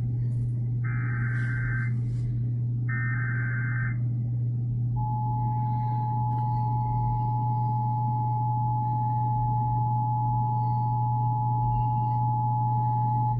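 Emergency Alert System broadcast over radio: two one-second bursts of the warbling SAME data header, then about five seconds in the steady two-tone EAS attention signal (853 and 960 Hz) starts and holds for about eight seconds before cutting off. A steady low hum runs underneath.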